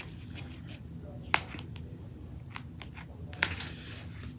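Stationery being handled at a desk: two sharp clicks, one a little over a second in and another about three and a half seconds in, with fainter ticks and paper handling over a low steady hum.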